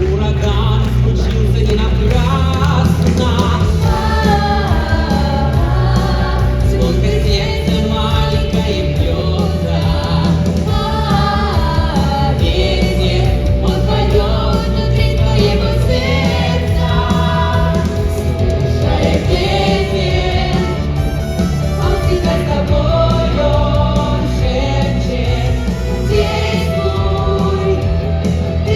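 Loud music with singing over a heavy bass line.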